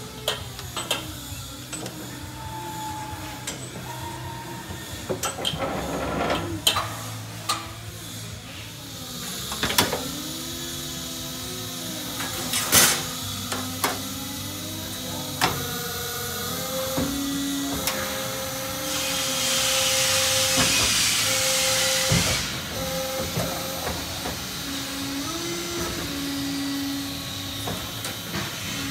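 Sheet-metal forming machines working stainless steel: a CNC folder and a corner-forming machine, with motor whines that rise and fall in pitch, scattered clanks and knocks, and a loud hiss lasting about three seconds about two-thirds of the way through.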